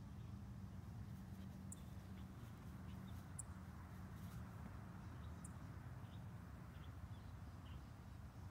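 Faint outdoor ambience: a steady low hum with short, high chirps about every two seconds.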